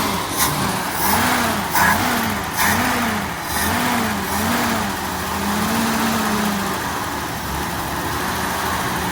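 1965 Mustang engine being blipped, its speed rising and falling five times in quick succession and then held briefly. The carburetor is dumping fuel, which the owners take for a flooding float.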